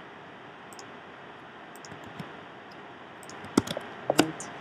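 Light clicks of a computer keyboard and mouse, with two sharper clicks a little over half a second apart near the end.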